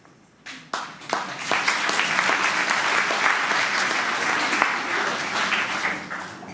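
Audience applauding in a hall: a few first claps about half a second in, swelling quickly into full applause that starts to fade near the end.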